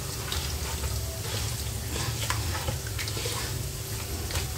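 Hands squishing and mixing chicken in a thick yogurt-and-spice marinade in a metal pot: a run of irregular wet squelches.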